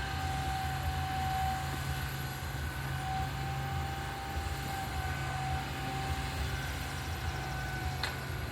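Tipper truck engine running steadily, with a thin steady whine over its low hum.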